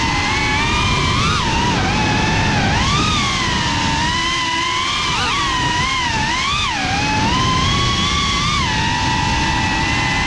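Geprc Cinelog 35 FPV drone's brushless motors whining in flight, the pitch gliding up and down with the throttle, with several quick swoops midway, over steady wind noise.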